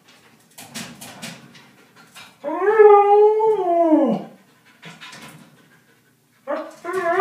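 Siberian husky in a metal wire crate: clinking and rattling from the crate, then a long howl about two and a half seconds in whose pitch rises and falls away at the end. More rattling follows, and a second, wavering howl begins near the end.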